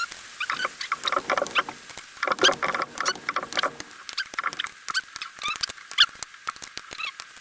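Ratchet wrench clicking rapidly and irregularly as bolts are tightened down in sequence on a gasketed engine cover.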